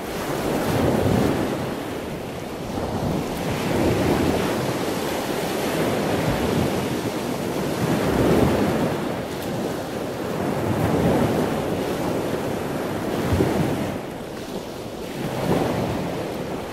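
Ocean waves washing and surging, the noise swelling and easing about every three seconds.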